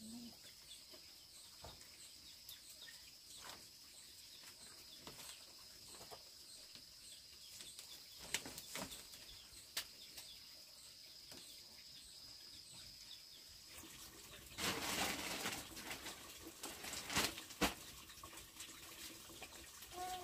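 Faint rustling and soft knocks of a cloth towel being wrapped around and rubbed over a baby, with a louder stretch of rubbing rustle about fifteen seconds in and a couple of sharp clicks just after. A faint steady high whine runs underneath and stops about two-thirds of the way through.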